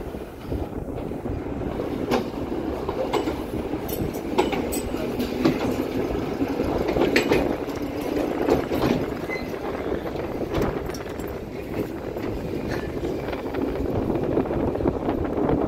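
Heritage KTM-1 tram with its KTP-1 trailer running along street track close by: a steady rolling rumble of steel wheels on rails with sharp clicks now and then.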